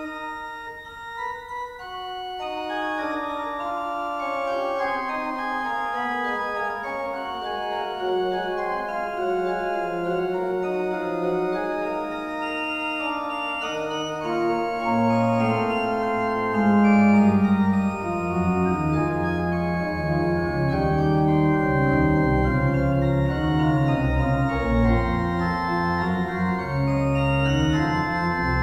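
Organ music: slow, sustained chords, with deep bass notes joining about halfway through.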